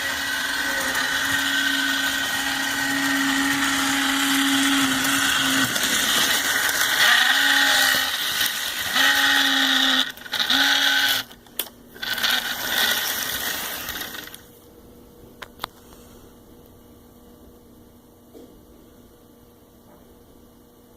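Small electric motor of a model Union Pacific locomotive running with a steady whirring hum: the weird noise its owner is asking about. It cuts out and restarts briefly around ten to twelve seconds in, then stops about fourteen seconds in, leaving a few faint clicks.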